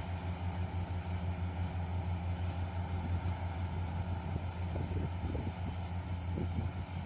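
Yanmar YH470 combine harvester's diesel engine running steadily with a low hum, harvesting machinery working.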